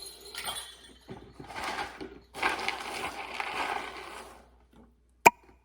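Hands digging through a bin of dried beans, the beans rattling and rustling in several bursts, the longest about two seconds; one sharp click near the end.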